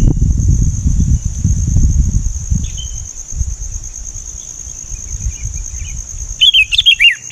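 A steady, high insect drone, cricket-like, runs throughout, with low rumbling noise over the first few seconds. Near the end a sooty-headed bulbul (kutilang) breaks into a quick run of short falling call notes.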